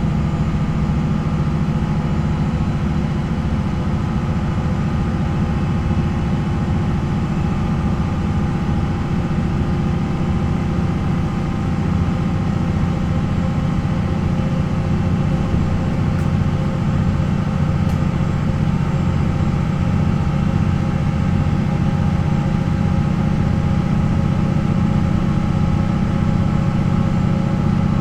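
MAN NL 263 city bus's D28 inline-six diesel engine running at a steady, unchanging speed, a deep even rumble with no revving.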